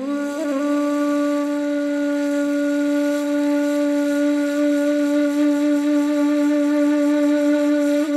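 Background music: a solo flute-like wind instrument holds one long, steady note after a short ornament at the start.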